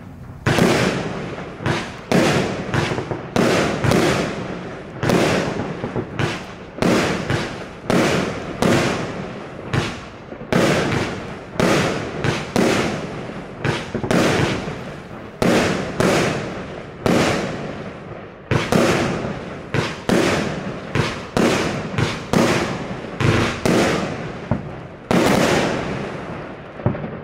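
A 25-shot, 25 mm consumer fireworks cake (Evolution Fireworks 2304 'Sunset') firing in quick succession: a string of sharp bangs from shells launching and bursting, about two a second. It fades out near the end.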